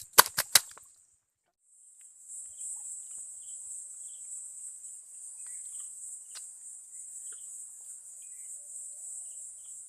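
Three sharp clicks in the first half second, then a steady, high-pitched insect chorus starting about two seconds in, with faint scattered chirps under it.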